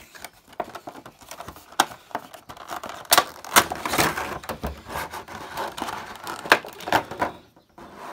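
Cardboard box flap opened and a clear plastic figure tray crinkling and clicking as a vinyl toy figure is slid out and handled: an irregular run of sharp crackles and taps that dies away near the end.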